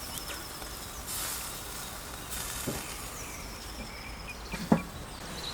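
Lamb kebabs sizzling on a roasting rack over a very hot gas grill: a steady hiss, with two small clicks in the second half.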